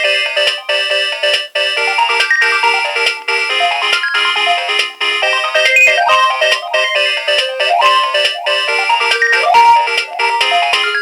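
Nokia 2300 mobile phone playing a polyphonic ringtone: a busy electronic melody with several notes sounding at once over a repeating lower part, and a few quick rising runs of notes in the second half.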